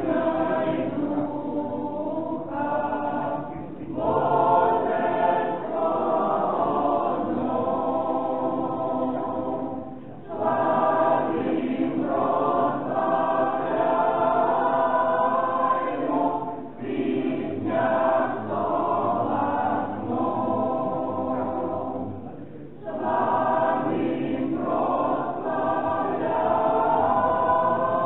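Church choir singing unaccompanied liturgical chant, in sustained phrases broken by short pauses about every six seconds.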